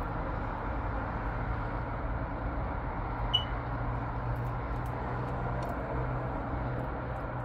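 Distant city road traffic heard from above: a steady wash of engine and tyre noise with a low hum, and one brief high chirp a little over three seconds in.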